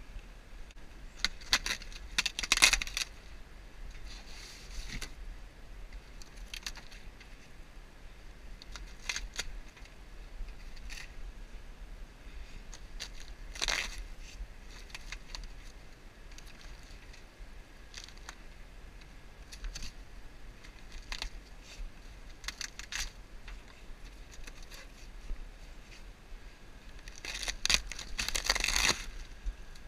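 Rotted wooden roof beams and roof debris being torn out by hand: scattered cracks, snaps and scrapes, loudest about two seconds in and again near the end.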